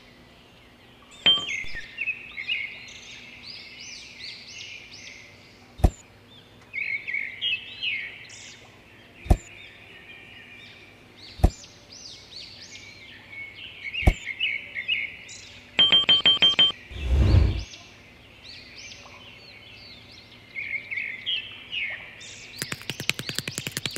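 Birds chirping and twittering throughout. Sharp single clicks come every few seconds; about two-thirds of the way through there is a quick run of ticks and then a low thud, and near the end a fast rattle of clicks.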